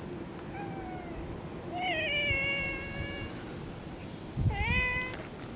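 An orange tabby cat meowing three times: a faint falling meow, then a long loud one that rises and holds, then a short one near the end that dips and rises. The uploader takes the meows as the cat demanding to be petted.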